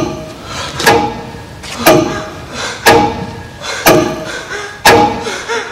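A heavy, drum-like thud repeating steadily about once a second, each beat ringing on briefly with a low tone.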